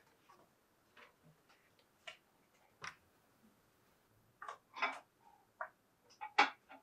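Irregular light clicks and knocks from things being handled in a kitchen, a cabinet being opened and its contents moved, with a run of louder clatters about four and a half seconds in and again near the end.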